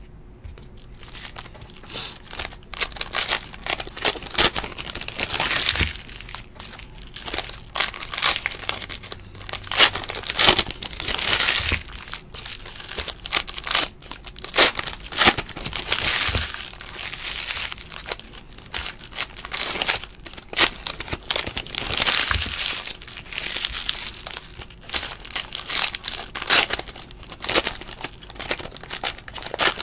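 Wrappers of 2018 Topps Heritage baseball card packs being torn open and crinkled by hand, in repeated irregular rustling bursts.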